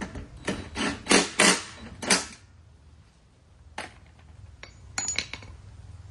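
Metal clinks and knocks from hand tools and mower parts being handled: about five quick knocks in the first two seconds or so, a single click, then a short cluster of ringing clinks near the end.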